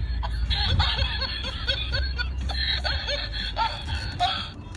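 Rapid high-pitched laughing, a string of short rising-and-falling notes several times a second, over the low rumble of a car's cabin that drops away about three seconds in.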